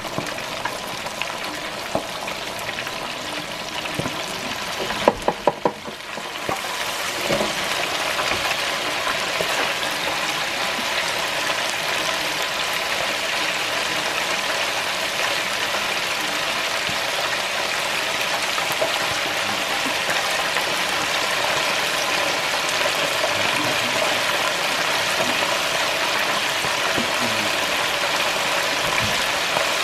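Rabbit pieces deep-frying in hot oil in an electric countertop deep fryer, with a steady sizzling hiss of bubbling oil. A few sharp clicks about five seconds in; after a brief dip the sizzle fills out and holds steady.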